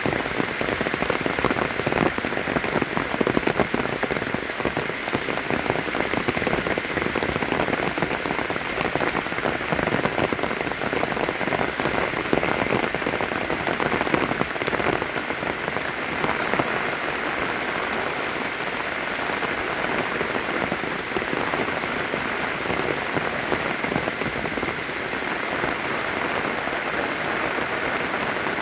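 Steady rain falling, a dense patter of drops hitting surfaces, easing slightly about halfway through.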